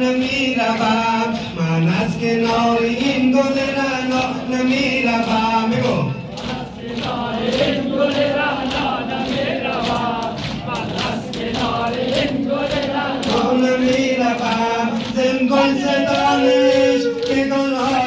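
Male voices chanting an Urdu noha (Muharram lament) together with a lead reciter, over a steady beat of hands striking chests (matam), about two strikes a second, plainest in the middle.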